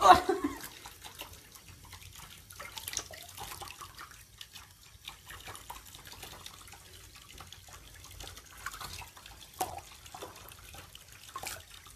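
Water dripping and splashing lightly in a tub as a rabbit is washed by hand: scattered small drips and splashes, not a running tap, with a sharper burst of sound at the very start.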